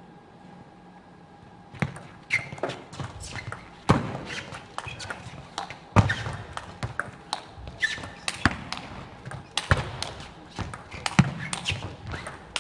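Table tennis rally: the ball clicks off the rackets and the table in quick succession, starting about two seconds in, with some harder knocks among the clicks. Short squeaks of shoes on the court floor are mixed in, and the sound carries the echo of a large hall.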